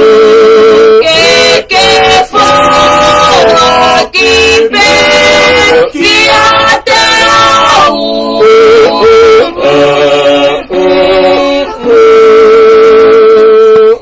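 A family singing a hymn together, men's, women's and children's voices in unison, with wavering held notes and short breaths between lines, ending on a long held note.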